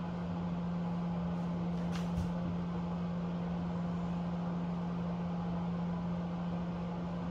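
A steady low hum over a faint rushing noise, as from a household appliance or fan running, with a faint click about two seconds in.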